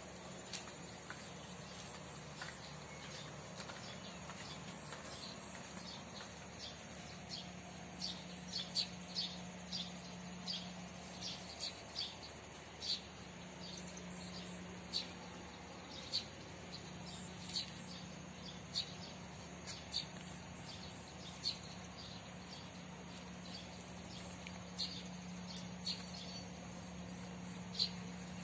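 Outdoor ambience: a steady high-pitched insect drone with short, high bird chirps repeating irregularly about once a second, over a faint low hum. A single sharp click near the end.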